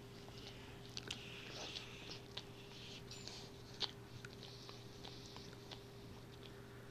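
German Shorthaired Pointer licking himself: faint wet licking and smacking with scattered small clicks, over a steady low hum.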